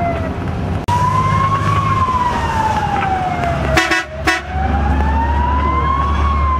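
Emergency-vehicle siren wailing in a slow rise and fall, about a second up and two seconds down, over the steady hum of a vehicle engine. The siren breaks off just under a second in and starts again. Two short, sharp sounds come about half a second apart near the middle.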